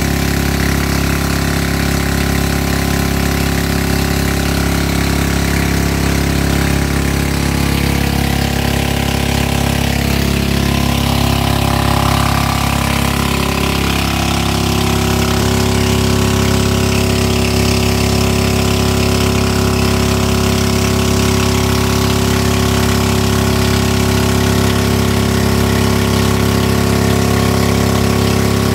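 Small boat engine running steadily, loud and close. Its pitch shifts a little between about ten and fifteen seconds in, then holds at a slightly different speed.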